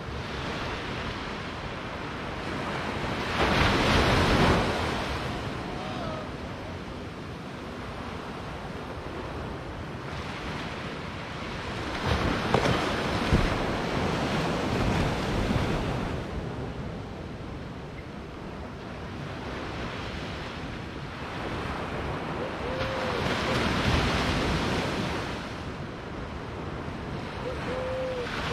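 Small ocean waves breaking and washing up a sandy beach: a steady surf wash with three louder surges about ten seconds apart.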